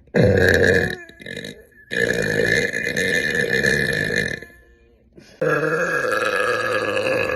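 A young woman burping loudly three times: one short burp, then two long, drawn-out burps of about two and a half seconds each.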